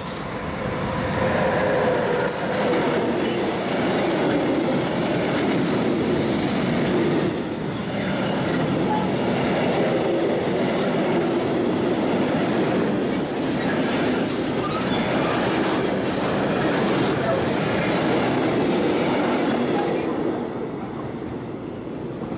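Freight train of covered sliding-wall wagons behind an electric locomotive passing close by: a steady rumble and clatter of wheels on rail, with brief high squeals now and then. It falls away near the end as the last wagon goes by.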